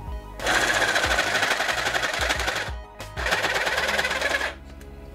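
Parkside PSTDA 20-Li A2 cordless jigsaw running in two bursts of a second or two each, with a short break between them, its reciprocating blade sawing into a small wooden block with a fast, even buzzing stroke.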